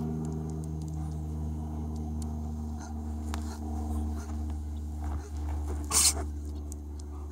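A dog sneezes once, a short sharp burst about six seconds in, over a steady low hum.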